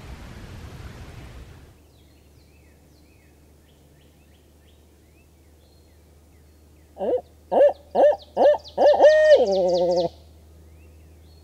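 Barred owl hooting: four short hoots about half a second apart, then a longer run of hoots ending in a drawn-out, wavering note, loud and close. Before it, a steady rushing noise cuts off about two seconds in.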